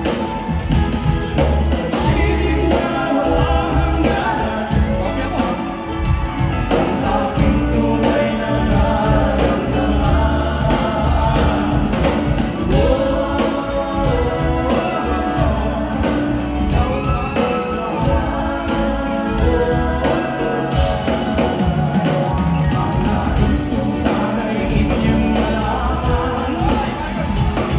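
Live band music with a lead singer on a handheld microphone and backing vocals, over a steady drum beat.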